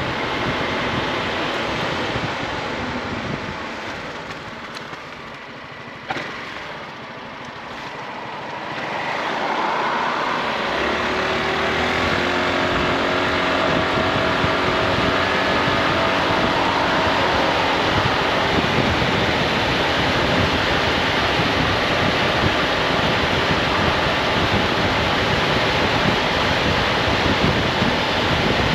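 Honda ADV 350 scooter's single-cylinder engine and wind rush on the rider's microphone while riding. The wind noise falls away for a few seconds, with a short click about six seconds in, then the engine note and wind build back up as the scooter gathers speed and carries on at a steady pace.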